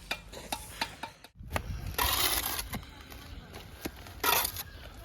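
Scattered light clinks and knocks, like metal tools striking hard material, with a burst of scraping noise about two seconds in and another short burst near the end.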